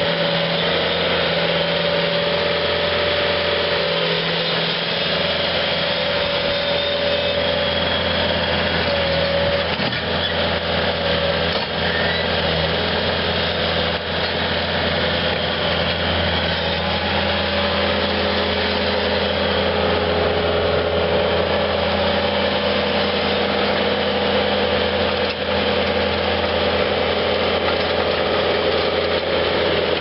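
Kubota four-cylinder diesel engine of a 2008 Bobcat T300 skid steer running steadily, with a whine that shifts a little in pitch and comes and goes.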